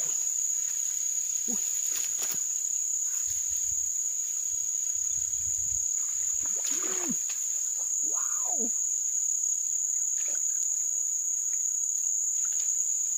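Swamp insects in a continuous high-pitched chorus that holds one steady tone.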